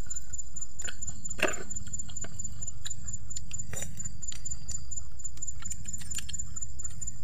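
People eating: scattered small chewing and mouth clicks, one sharper click about a second and a half in, over a steady low rumble and a steady high, pulsing whine.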